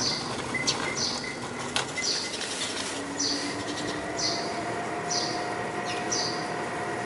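Eurasian tree sparrow chirping over and over, one short falling chirp about every second, with a few sharp clicks in the first two seconds.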